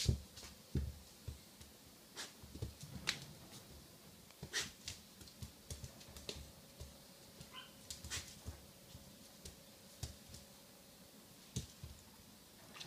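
A puppy play-fighting with an adult dog on a wooden floor: irregular sharp clicks of claws on the boards and soft paw thumps.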